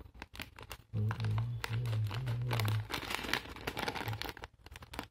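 Scissors cutting into a foil-and-plastic snack packet, with the packet crinkling and crackling in quick clicks. A few low, held musical notes sound about a second in, louder than the cutting.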